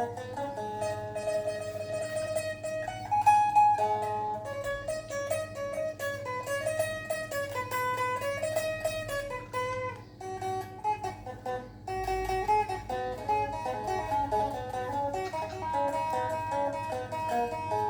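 Thai phin, the plucked Isan lute, playing a quick, ornamented traditional melody of fast-picked notes over a steady drone string.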